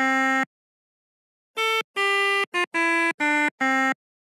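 Pianika (melodica) sound from a virtual keyboard app, playing single reedy notes: one low note, then after about a second's pause six notes stepping down the scale back to that low note.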